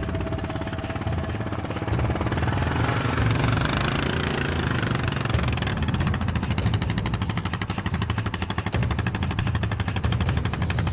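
Quad bike engine running as it drives slowly away over muddy ground, a steady, fast, even putter that grows more distinct about halfway through.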